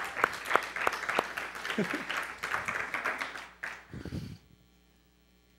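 Congregation applauding, dense clapping that thins out and stops about four seconds in, followed by a brief low thud.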